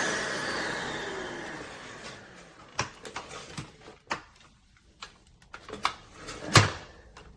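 Shark Stratos cordless stick vacuum motor winding down, its whine falling in pitch and fading over the first two to three seconds. After that come a few scattered clicks and knocks from the vacuum being handled, the loudest one sharp knock about six and a half seconds in.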